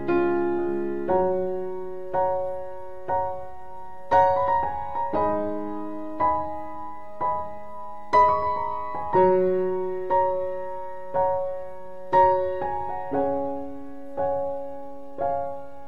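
Background music: a slow piano piece, notes and chords struck about once a second and left to fade.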